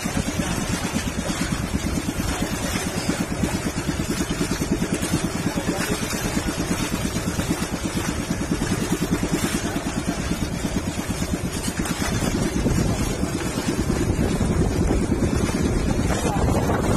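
Outrigger boat's engine running steadily with a fast, even putter while the boat is under way; it gets louder and hissier about twelve seconds in.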